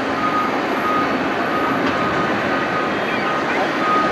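Steady, distant engine noise of an Airbus A340-600's four Rolls-Royce Trent 500 jet engines at low thrust as the airliner taxis onto the runway. A faint high beep repeats about every half second.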